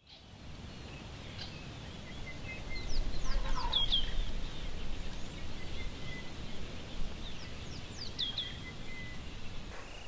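Outdoor bush ambience: a steady low rumble, with high, falling chirping calls in two short bursts, about three seconds in and again about eight seconds in.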